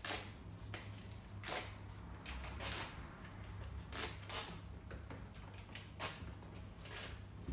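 Paper raffle tickets being torn apart along their perforations and handled: a series of short, irregular tearing and rustling rasps, several every couple of seconds.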